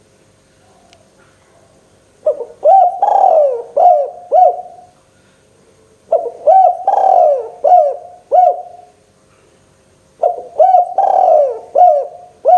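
Spotted dove (tekukur) singing: three cooing phrases of several rising-and-falling notes each, about four seconds apart, the first starting about two seconds in.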